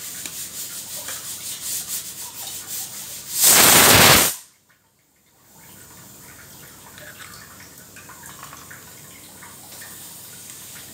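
Serrated knife sawing across a raw eggshell: rapid rasping strokes for about three seconds. Then a loud burst of rushing noise that cuts off suddenly, followed by faint small cracks and clicks as the shell is pulled apart.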